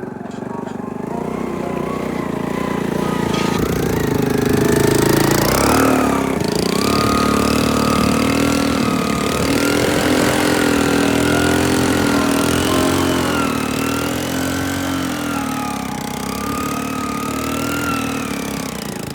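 An engine running, its pitch slowly rising and falling, and growing louder over the first few seconds.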